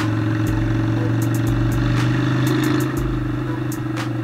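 Suzuki Steed 400 V-twin engine, running on a single carburettor, pulling the bike along at a steady road speed. The engine note swells slightly and eases off about three seconds in.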